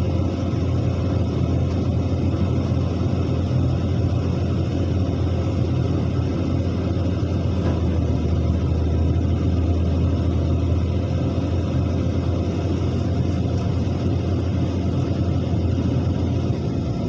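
Diesel engine of an excavator running steadily, a low, even drone.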